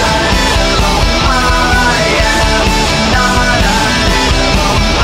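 Rock music played loud by a full band, dense and steady, in an instrumental passage without vocals.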